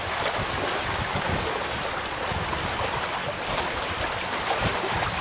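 Steady rushing of wind and water, with wind gusting on the microphone as a low buffeting rumble.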